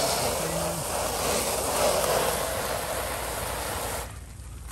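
Soft-wash solution spraying from a wand fed by a 12-volt pump, a steady hiss against the house siding that cuts off about four seconds in.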